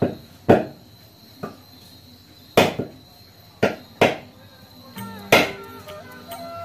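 A heavy knife chopping raw chicken on a wooden stump chopping block: about six sharp chops at uneven intervals, each a hard knock on wood. Background music comes in about five seconds in, under the last chop.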